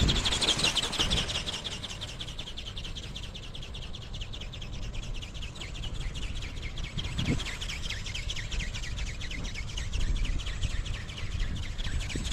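Strong wind buffeting the microphone, with a fast, high-pitched chirring running over it throughout. The chirring is loudest at the start and again near the end.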